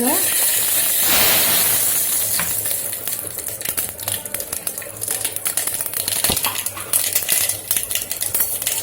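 Mustard seeds sizzling and popping in hot oil in a pan for tempering: a hiss, loudest for the first couple of seconds, then many sharp, irregular pops.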